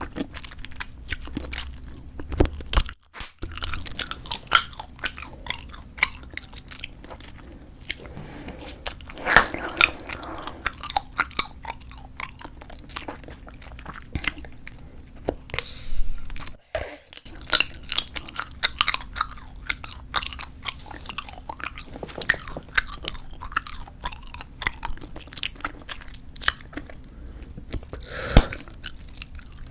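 Close-miked chewing of squeezable tube bubble gum: a dense, continuous run of small mouth clicks and smacks.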